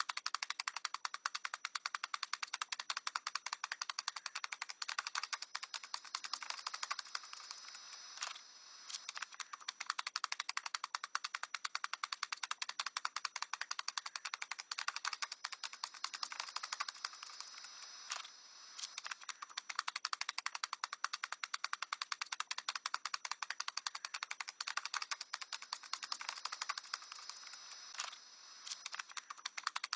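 A parrot tapping: a fast, steady run of light taps, broken by short pauses about every ten seconds.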